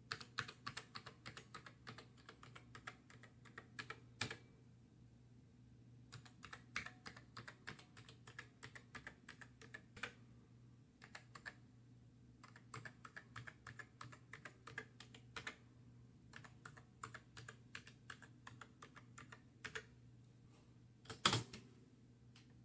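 Keys of a Commodore SX-64 keyboard with a new replacement membrane being pressed one after another as every key is tested: light key clicks in quick runs with a few short pauses, and a louder clack near the end. A faint low hum runs underneath.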